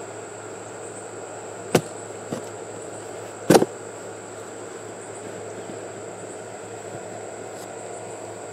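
Two sharp cracks, one nearly two seconds in and a louder one about three and a half seconds in, from a cardboard shipping box being handled and opened. They sit over a steady high insect drone.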